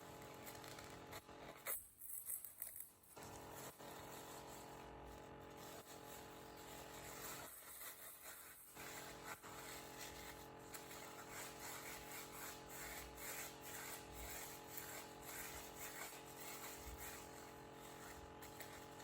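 Soft rustling and light strokes on paper towels, turning into a quick, fairly even run of light strokes in the second half. A steady background hum lies under it, which the maker takes to be from a laptop.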